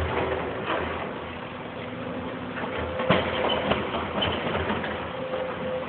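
Hydraulic excavator running as it swings its boom over brick demolition rubble, with scattered knocks and clanks; the loudest knock comes about three seconds in. A thin steady whine comes and goes in the second half.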